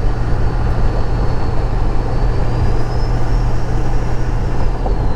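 Ford 7.3L Power Stroke V8 turbo-diesel truck driving, heard from inside the cab as a steady low engine drone. A faint high turbo whistle sits over it, rising slightly about halfway through and falling back near the end.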